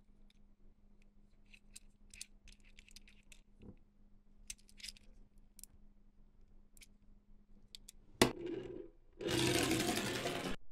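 Small plastic clicks and rattles of toys and packaging being handled, then a sharp click and a loud rustle of packaging for about a second near the end.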